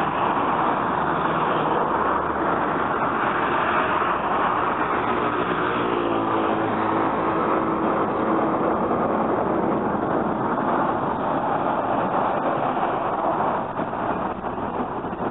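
Road traffic passing close by: a steady rush of tyre and engine noise. About six to eight seconds in, a passing vehicle adds an engine tone that bends in pitch.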